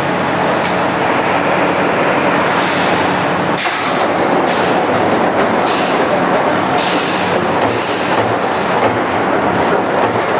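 Automatic sheet-metal punching machine running: a steady mechanical hum and clatter with sharp metal clacks, the loudest about three and a half seconds in and several more in the last few seconds.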